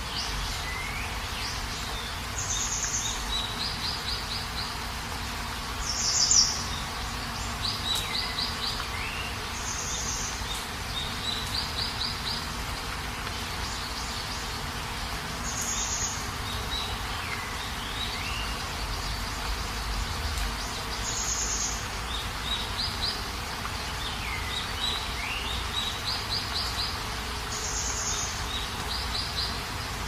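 Steady rain hiss with a bird calling over it every few seconds: quick series of short chirps, brief high calls and notes that swoop down and back up.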